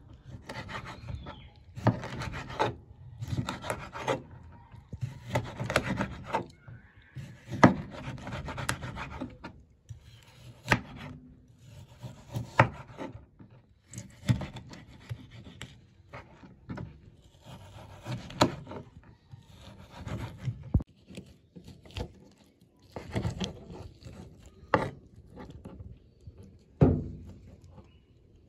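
Chef's knife cutting raw chicken breast on a wooden cutting board: irregular drawn strokes of the blade through the meat, about a second each, many ending in a sharp knock of the knife on the board.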